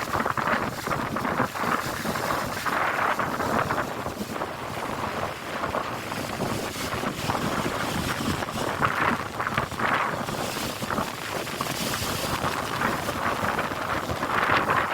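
Storm wind gusting hard through trees and buffeting the microphone, swelling and easing from moment to moment.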